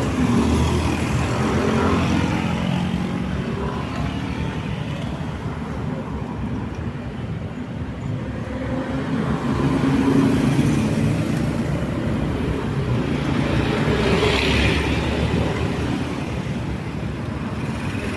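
Road traffic: a steady mix of engines and tyre noise from vehicles going by, with louder passes swelling up about ten seconds in and again a few seconds later.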